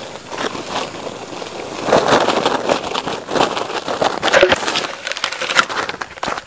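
Close crackling and rustling of a woven plastic sack being handled at the microphone, with many sharp crinkles, loudest in the middle, while a caught green junglefowl is put into it.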